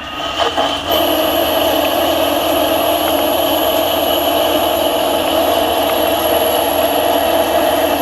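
CNC lathe running steadily through a cut: a constant machine hum with a thin, high steady whine that comes in about a second in.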